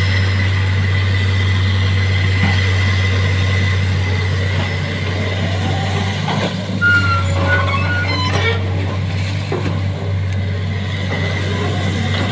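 Excavator engine running steadily, with a low hum and a constant high whine. A few short squeaks and knocks come past the middle.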